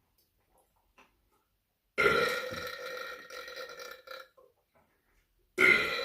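A person burping: one long, loud burp held at a steady pitch for about two seconds, starting two seconds in, then a second loud burp near the end.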